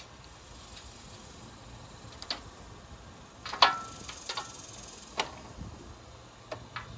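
Scattered sharp clicks and knocks of hard objects being picked up and set down while rummaging through a dumpster's contents. The loudest, a little past halfway, is a clink with a brief ring.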